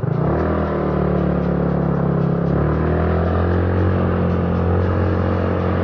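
Small scooter engine pulling away and then holding a steady pitch under throttle while the bike rides on, its tone bending slightly about halfway through.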